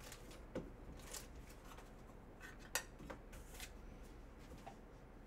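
Faint, scattered light clicks and rustles of fingers handling a thick acetate trading card, the loudest tick about three seconds in, over quiet room tone.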